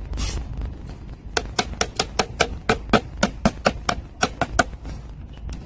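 Rubber mallet tapping on the dovetail joints of a wooden beehive box body: a quick run of about twenty light knocks, roughly six a second, starting about a second in and stopping near the end, seating the boards flush.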